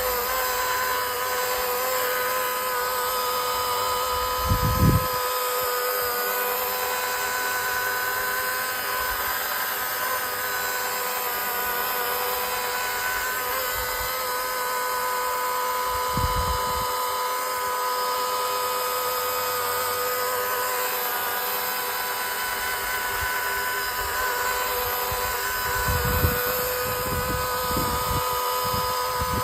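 Electric polishing machine with a foam polishing pad running steadily with a constant whine as it polishes a car headlight lens with 3M compound. There are a few brief low bumps, about five seconds in, in the middle and near the end.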